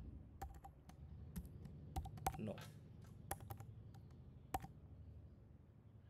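Typing on a computer keyboard: a dozen or so scattered, irregular key clicks, over a faint low hum.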